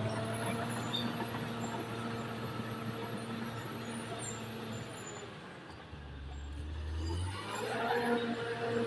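Caterpillar D6R XL bulldozer's diesel engine running steadily under load. About six seconds in it drops to a lower note, then picks back up after a second or so.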